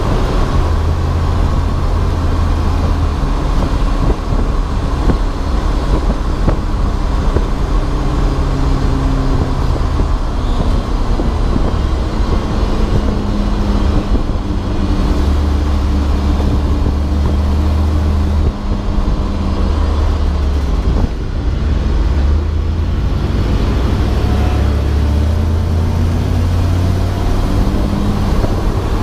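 Race car engine running hard on track, its pitch repeatedly rising and then dropping as it goes up through the revs and changes gear, over a steady rumble of road and wind noise.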